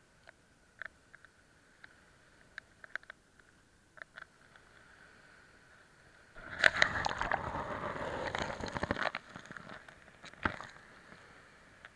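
Sea swash on a pebbly sand beach, recorded right at the water's edge: scattered small clicks and taps, then a wave washes up around the microphone as a loud crackling rush lasting about three seconds from the middle of the clip, followed by a few more clicks and one sharp tap.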